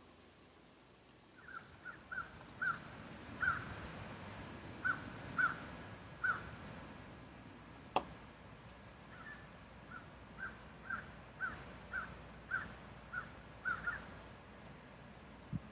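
A bird calling in a long series of short, harsh calls, a few a second, with a pause in the middle. A single sharp click about eight seconds in.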